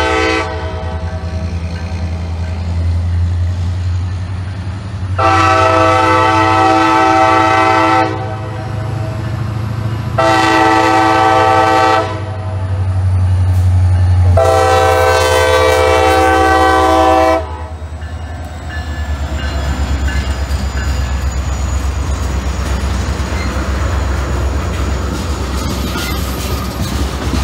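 CSX diesel locomotive sounding its multi-tone air horn for the grade crossing: the end of one blast, then a long, a short and a long blast, over the low rumble of the engine. After the last blast the tank cars roll past with a steady clickety-clack of wheels over the rail joints.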